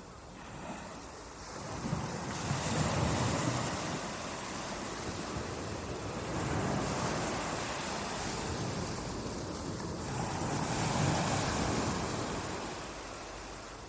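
Ocean surf: waves breaking and washing in, swelling and easing three times over a steady rush of water.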